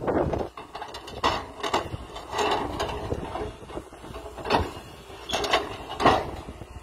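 Doosan tracked excavator working rock with its hydraulic breaker: short, irregular bursts of knocking and rock clatter, over the low, steady running of its diesel engine.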